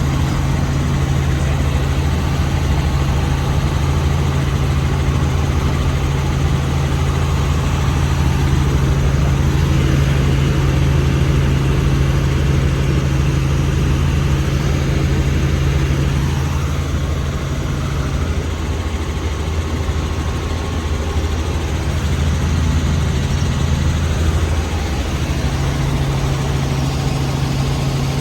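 Helicopter engine and rotor drone heard from inside the cabin in flight: a loud, steady low hum that eases slightly for a few seconds past the middle.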